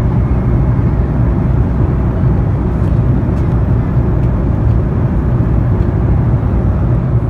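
Steady low drone of a Boeing 777-300 airliner's cabin, the engines and airflow heard from an economy seat.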